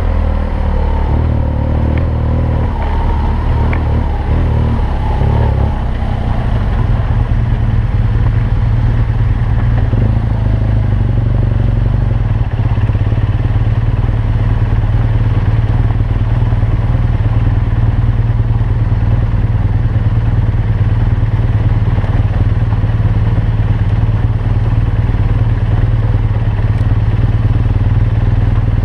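BMW R1200GS motorcycle's flat-twin engine running, its pitch changing in the first few seconds and then holding a steady low drone.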